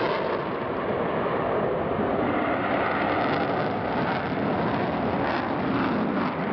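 Eurofighter Typhoon fighter jet flying past with afterburners lit: a steady rush of jet engine noise.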